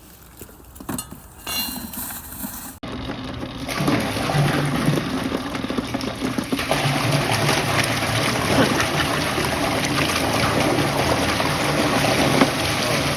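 Wastewater rushing steadily through an opened sewer line, with a low motor hum underneath, starting abruptly about three seconds in after a few faint clicks and drips.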